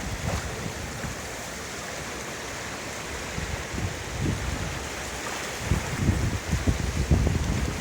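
Fast-flowing floodwater rushing steadily, with wind buffeting the microphone in low gusts that grow stronger in the second half.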